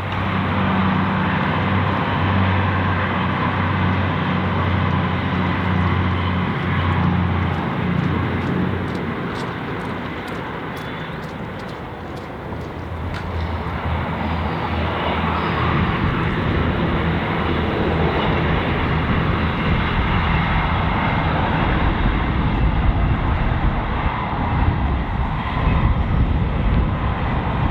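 Diesel train going past: a steady engine hum over track and air noise, easing off around the middle, then building again with a heavier low rumble toward the end.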